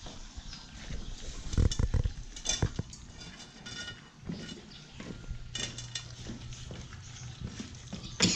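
Month-old Belgian Malinois puppies eating from metal bowls on a concrete floor: bowls clinking and knocking, with a cluster of louder knocks about a second and a half in and short high whines from the puppies now and then.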